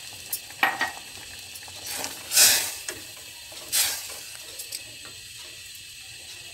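Plums simmering in water in a stainless steel pot with a steady faint bubbling hiss, while sugar is stirred in with a silicone spatula. There are a few light knocks early, then two louder stirring strokes about two and a half and four seconds in.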